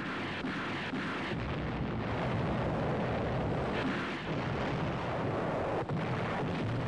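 Naval bombardment: sharp cracks of gunfire about twice a second give way, about a second in, to a continuous heavy rumble of shell explosions, with one more sharp crack near the end.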